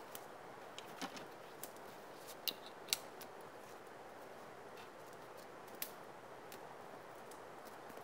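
A handful of sharp, irregular clicks and crisp snaps over a faint steady outdoor hiss, from a person moving about on snow beside a pole-and-tarp shelter. The two loudest snaps come close together about two and a half and three seconds in.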